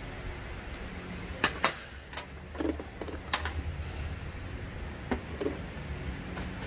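A handful of sharp knocks and clinks, two close together about a second and a half in and a few more scattered after, over a steady low hum: workshop handling noise as a mechanic works on a machine.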